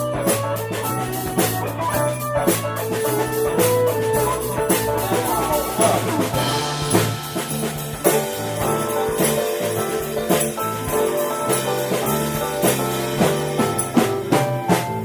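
Live jazz-rock improvisation by a quartet: drum kit, electric bass, guitar and keyboards playing together, with a moving bass line under held notes and steady drum hits.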